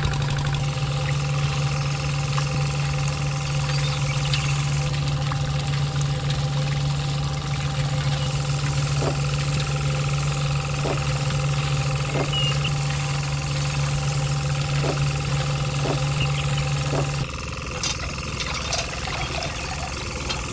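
Small motor running steadily with an engine-like hum, driving a model engine's belt and pulleys. It cuts off about 17 seconds in. A few light clicks are heard over it.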